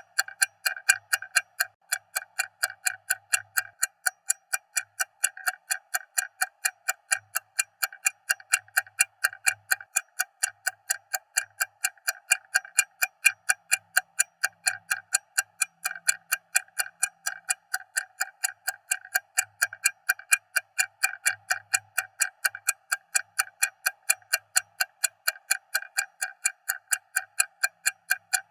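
Stopwatch ticking loudly, a fast, even run of sharp ticks that never changes pace.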